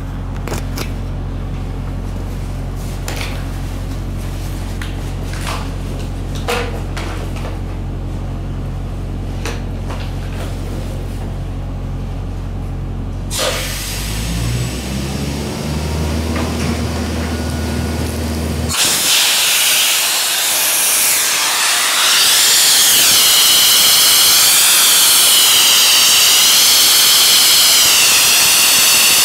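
A steady low machine hum with a few clicks, then an abrasive blasting nozzle starts about halfway through. Its blast hiss grows loud and holds with a wavering sweep to it. The blasting is run dry with the water shut off.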